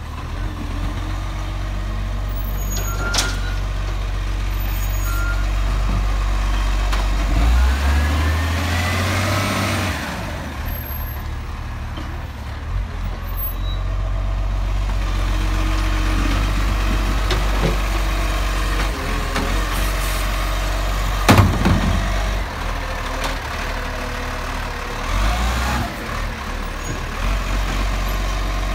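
Diesel engine of a side-loader garbage truck running as it drives along and pulls in beside the bins. There is a rising-then-falling whine about a third of the way in, and one sudden loud sharp noise about two-thirds of the way through.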